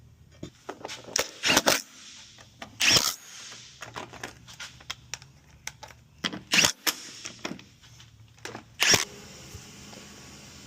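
A series of sharp, irregular clicks and knocks from hand work on parts and tools. About nine seconds in they give way to a steady hiss.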